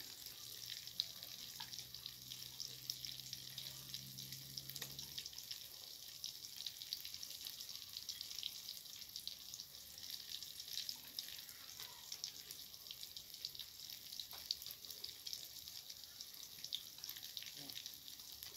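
Masala-coated tilapia pieces shallow-frying in oil in a steel pan on a gas stove: a steady, quiet sizzle with many small crackles and pops. A faint low hum underneath stops about five seconds in.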